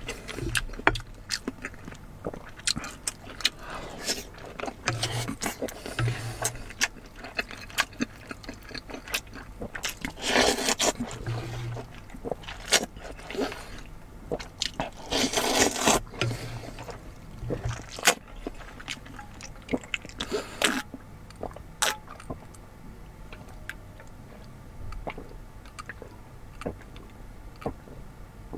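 Close-miked eating sounds: chewing and wet mouth clicks, with two longer scraping or slurping stretches partway through. It grows sparser toward the end.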